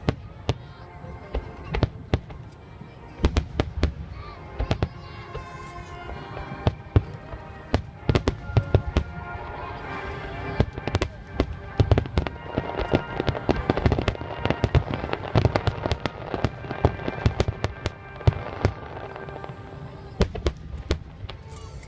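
Fireworks display: aerial shells bursting in a rapid, irregular barrage of sharp bangs that thickens to a dense volley midway, with music playing underneath.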